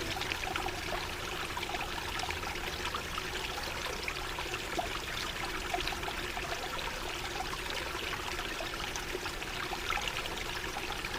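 Running water trickling steadily, like a small stream, with many small splashing ticks.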